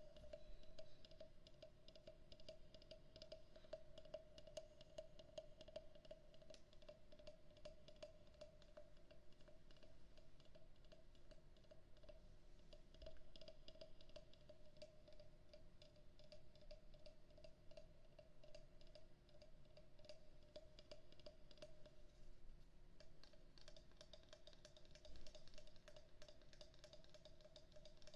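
Quiet, dense light clicking and tapping on a wooden frog percussion instrument, over a faint steady hum.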